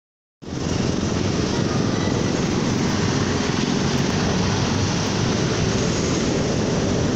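Steady city street noise, a low rumble of passing traffic, starting suddenly about half a second in.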